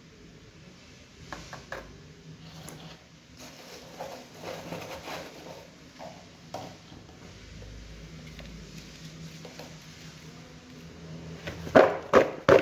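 Soft taps and rustling as starch is sifted over raw potato sticks and the sticks are turned in a plastic bowl. Near the end, loud regular knocks begin, about three a second, as the bowl of starch-coated potato sticks is shaken and tossed.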